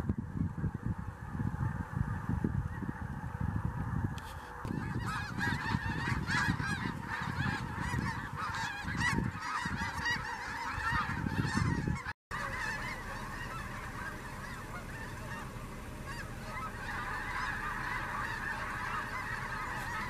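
A large flock of snow geese calling in flight: a dense clamour of many overlapping high honks. A low rumble runs under the calls until about twelve seconds in, then stops while the honking carries on.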